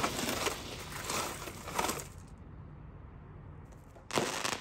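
Ground fountain firework spraying sparks with a dense hissing crackle that dies out about two seconds in. A sudden short, loud burst of noise follows near the end.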